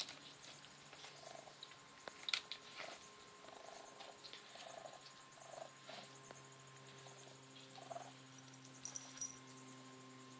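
Baby raccoon making soft, short purring chirps, irregularly spaced, with a few light clicks, over a faint steady hum.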